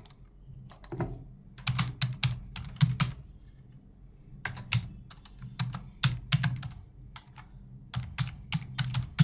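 Computer keyboard typing: several quick runs of keystrokes with short pauses between them.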